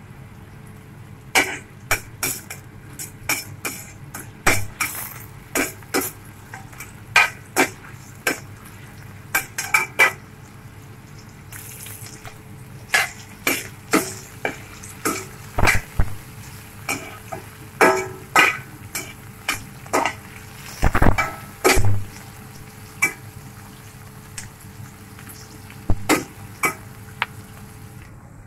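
Metal slotted spoon clanking and scraping against a stainless steel wok in irregular strikes as aromatics are stir-fried, with a faint sizzle of frying underneath.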